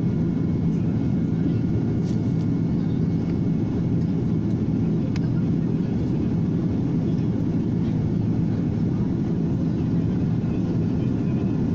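Steady drone of an airliner in flight, heard from inside the cabin: an even, low-pitched rush of engine and airflow noise with a few faint steady tones and no change in level.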